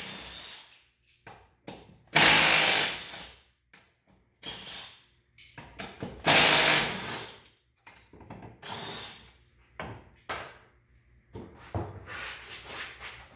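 Power tool spinning off the rear wheel lug nuts of an ATV in short bursts of about a second each, three in all, with quieter handling clatter between them.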